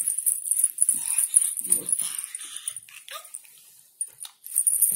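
A baby babbling, with a few short squealing vocal sounds over a steady hiss.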